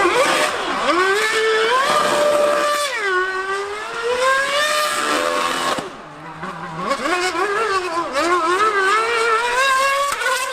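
High-revving racing engine accelerating hard. Its pitch climbs and drops back at each gear change, several times over, with a brief drop in loudness about six seconds in before it climbs again.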